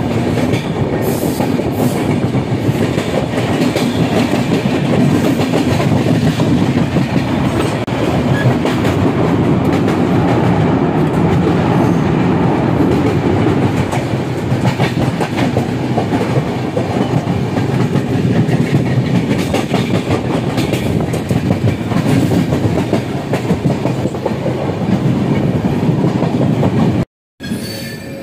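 Passenger train running along the track, heard from a coach window: a steady loud rumble of wheels on rail with clickety-clack over the joints. Near the end it cuts out for a moment and comes back quieter.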